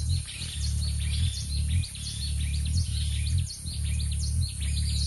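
Hummingbird's wings humming as it hovers: a low, steady buzz that breaks off briefly several times, with many short, high chirps over it.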